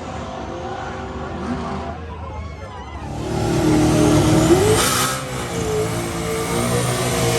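Drag-race car engines running, growing louder about three seconds in, with a brief rise in pitch shortly after.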